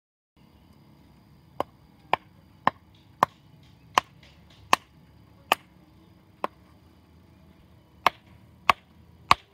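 A series of about eleven sharp chopping knocks, roughly one every half second, with a pause of over a second before the last three.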